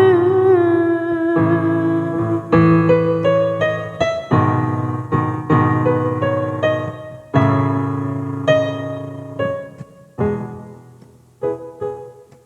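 Instrumental piano interlude of a slow worship song: chords struck one after another and left to ring. The playing thins and fades near the end.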